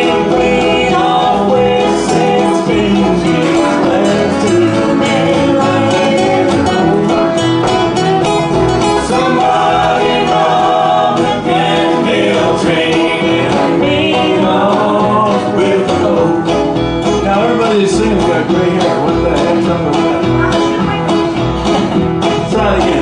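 Live acoustic band playing a country/bluegrass-style song: several acoustic guitars strumming, a harmonica, and voices singing.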